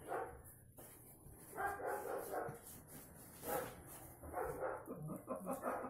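A dog barking several times, in short separate bursts.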